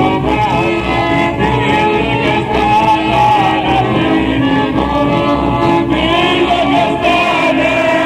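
Southern Italian folk song (canto popolare): a solo voice singing a wavering melody over instrumental accompaniment with a steady low beat.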